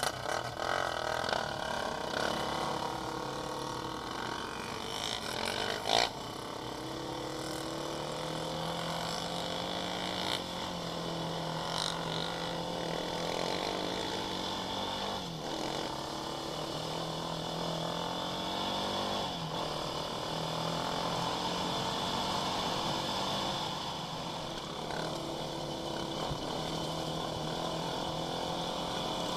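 Quad bike engine running under load on a rough dirt trail, its pitch rising and dropping with the throttle, over steady wind and gravel noise, with a sharp knock about six seconds in.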